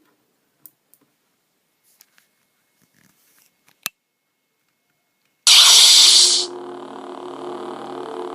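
Lightsaber sound board: a few faint clicks, then about five seconds in a loud ignition burst lasting about a second, settling into a steady lightsaber hum.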